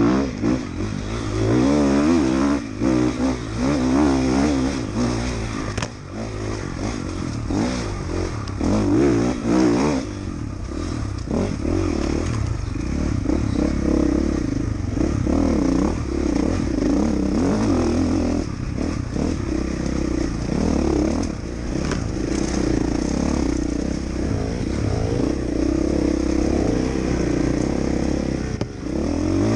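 Dirt bike engine ridden close up, revving up and down over the first ten seconds, then running more steadily.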